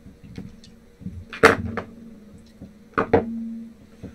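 Hand tools and small parts being picked up and set down on a work mat: a few sharp knocks and clinks, the loudest about a second and a half in and two more around three seconds in.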